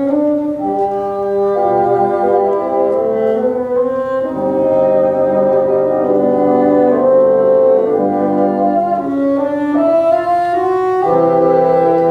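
A bassoon ensemble playing in several-part harmony, the bassoons holding notes together and moving to a new chord every second or two.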